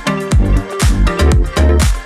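Electronic dance background music with a steady four-on-the-floor beat, about two kick drums a second.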